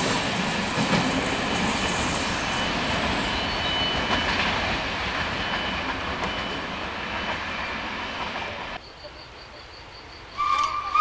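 Railway passenger coaches rolling past and away along the track, wheels clattering and rumbling as the sound slowly fades. It cuts off suddenly to a quiet background, and a steady high tone begins near the end.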